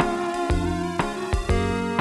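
Background music: a plucked-string tune with a steady beat, notes changing about twice a second.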